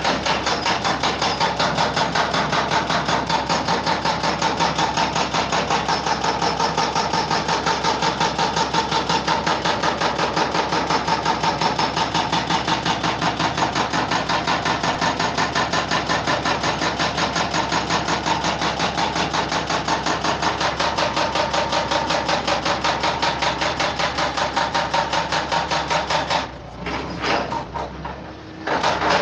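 A machine running with a loud, fast, even clatter of several strokes a second, stopping about 26 seconds in, followed by a few scattered knocks.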